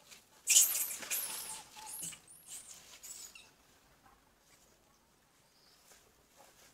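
Macaque squealing: a run of rapid, high-pitched squeals that starts about half a second in and stops after about three seconds.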